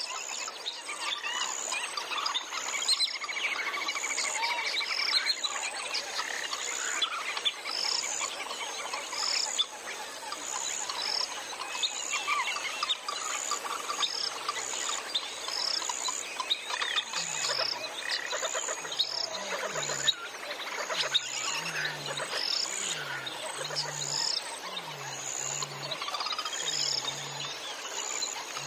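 Field recording of a rainy-season wetland chorus: many frogs and insects calling together, with a high chirp repeating about once a second. From about halfway, a low croak joins in, repeating about once a second.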